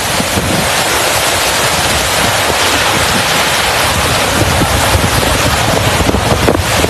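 Strong storm wind buffeting the microphone over a loud, steady rushing noise.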